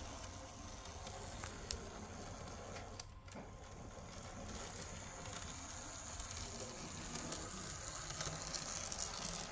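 Märklin Z-scale V36 model diesel locomotive running along the track: its tiny electric motor and gear train whirring steadily, with a few light clicks from wheels on the rails.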